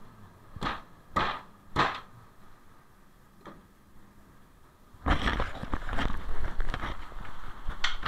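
Three sharp knocks about half a second apart, then a few seconds of dense clattering and rattling, as a gillnet full of fish is hauled and shaken out against the side of a fishing boat.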